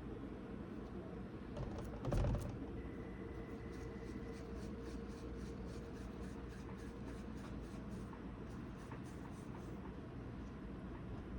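Quiet handling sounds of bread dough being pinched off and rolled into balls by hand: a soft bump about two seconds in, then a run of faint quick ticks, about three or four a second.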